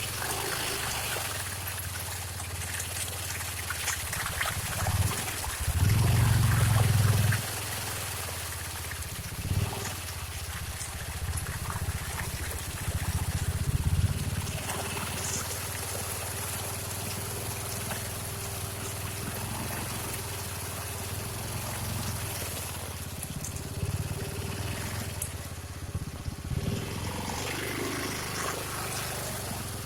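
Honda Pioneer 700-4 side-by-side's single-cylinder engine running low as it works through a mud hole. It surges under throttle several times in the first half, the longest about six seconds in. Faint splashing of mud and water runs under it.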